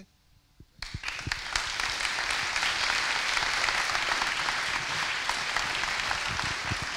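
Audience applauding, starting about a second in after a brief hush and easing slightly near the end.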